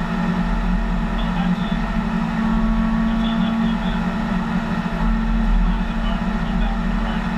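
Backhoe loader's diesel engine running steadily, with faint voices in the background.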